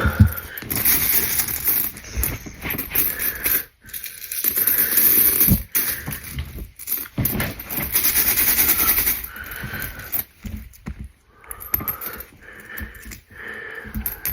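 Pennies being handled: a pile of coins scraped and shuffled across a surface, with clinking and clattering in several bursts and short pauses between.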